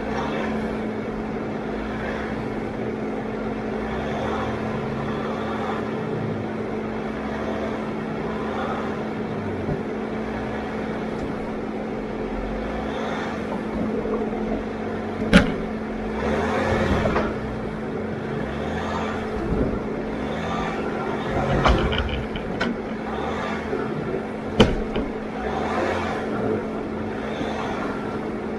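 An off-road vehicle's engine running with a steady hum while it drives slowly along the trail. A few sharp knocks and rattles come about halfway through and again later.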